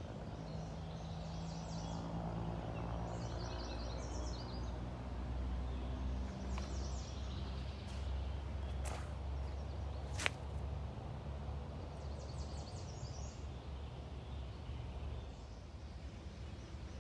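Songbirds chirping in short trills among trees over a steady low rumble, with a sharp click about ten seconds in.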